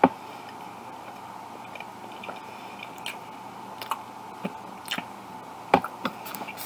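A person chewing a mouthful of hot dog with the mouth mostly closed: scattered wet clicks and smacks, the loudest a sharp click right at the start, over a faint steady hum.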